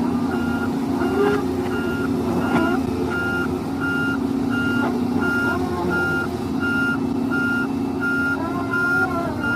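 A reversing alarm beeping at one even high pitch, just under twice a second, over a steady engine drone: the working sound of an excavator.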